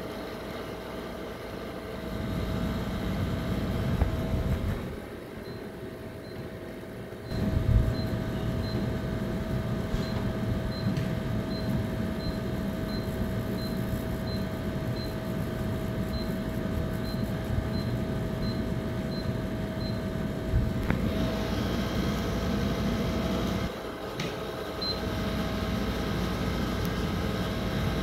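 Royal Vision Vendor bottle-drop vending machine's delivery mechanism motors running through a calibration cycle over a steady hum. The motors run in stretches, pausing briefly about five seconds in and again near 24 s, with faint high ticks about every half second in the middle stretch.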